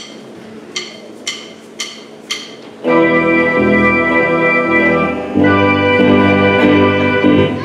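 A count-in of sharp clicks about half a second apart, then sustained electronic keyboard chords in an organ-like tone start the song's intro, changing chord a little over halfway through.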